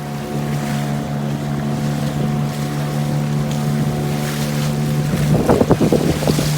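Boat engine running at a steady speed, with wind buffeting the microphone. Near the end a burst of irregular knocks rises over the engine.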